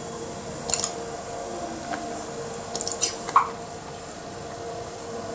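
A few sharp mouse-button clicks, scattered and one short cluster in the middle, over the steady hum of the running Power Macintosh 7300/200 desktop computer.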